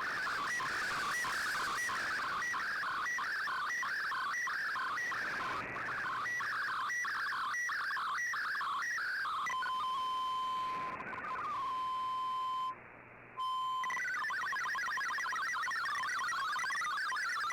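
MFSK digital data signal on shortwave radio: rapid warbling tones stepping up and down between about 1 and 2 kHz. About ten seconds in it gives way to a single steady tone, cuts out briefly, then the warbling resumes and ends in a steady tone again near the end.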